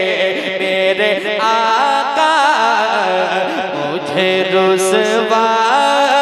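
A male naat reciter singing a long, drawn-out line of an Urdu naat into a microphone over a PA system, with held, wavering notes.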